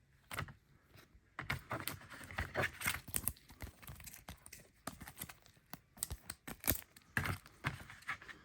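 Trading cards being handled and sorted by hand: irregular quick clicks and flicks with rustling and crinkling.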